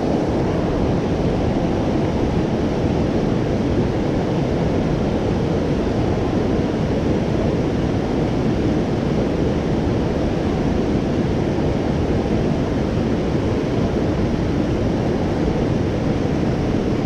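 Steady rushing of a fast-flowing river over rocks and rapids, mixed with wind on the microphone, unbroken and even throughout.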